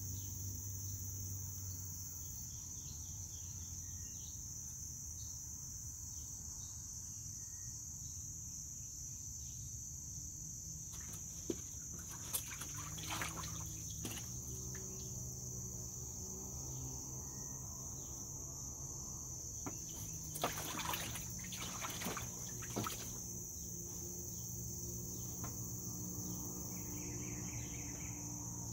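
An American mink splashing as it swims and dives after fish in a plastic wading pool, in two short bouts of splashes, one about a third of the way in and another about two-thirds through. Insects chirr steadily and high-pitched throughout.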